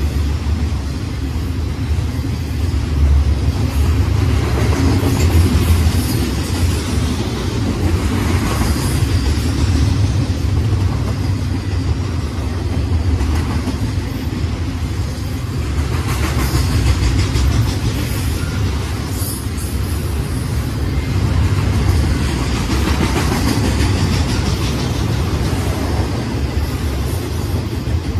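Double-stack intermodal freight train rolling past: a steady low rumble of steel wheels on the rails, with scattered sharper clicks and rattles from the container well cars.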